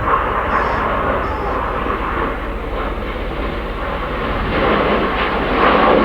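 BAE Hawk T1 jets with Adour turbofans flying past in display, a continuous jet rush that swells louder over the last second or so.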